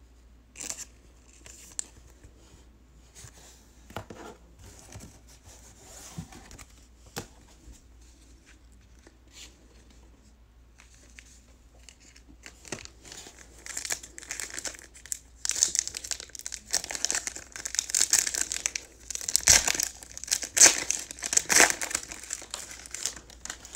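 A few soft clicks of trading cards being handled, then from about halfway in, a foil trading-card pack wrapper being torn open and crinkled in loud, crackly spells.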